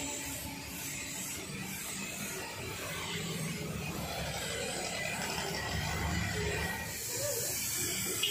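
Gravity-feed compressed-air paint spray gun spraying, a steady hiss of air and atomised paint.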